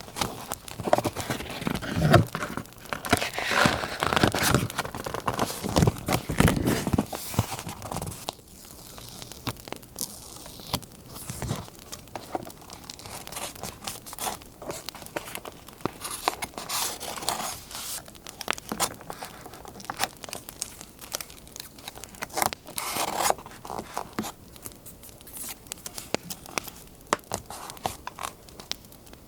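Paper being handled for a scrapbook collage: tearing and crinkling paper with scissor snips and small clicks, busiest in the first several seconds and again about three-quarters of the way through.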